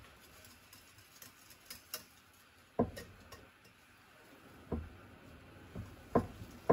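A utensil stirring flour into thick carrot-cake batter in a bowl, giving a few scattered light knocks against the bowl.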